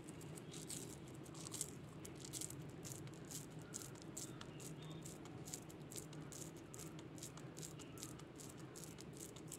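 Soft, irregular crackling and pattering as hands scoop a crumbly rice, coconut and jaggery mixture off a steel plate and squeeze it into balls, over a steady low hum.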